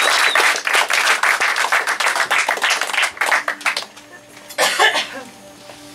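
Live theatre audience applauding, the clapping dying away about four seconds in. A short loud vocal burst comes near the end, and faint steady music begins at the very end.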